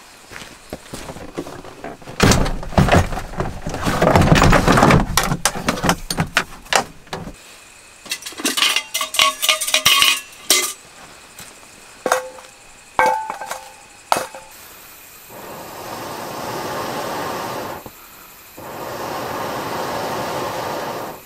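Metal camp cookware being handled: rustling and knocking, then a run of clinks that ring. Near the end come two long, steady breaths blown through a fire blowpipe into a small camp stove to fan the fire.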